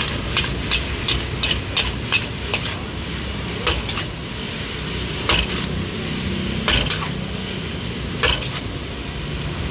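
Noodles stir-frying in a large wok over a gas flame: steady sizzling, with a metal spatula striking and scraping the wok. The strikes come quickly, about three a second, at first, then as single louder clanks about every second and a half.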